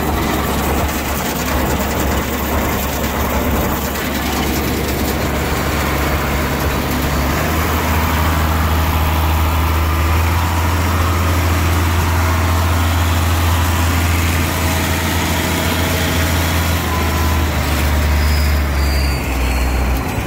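Allis-Chalmers tractor engine running steadily while it drives a manure spreader through the PTO as a test after a repair. The engine note gets stronger about seven seconds in and eases off near the end.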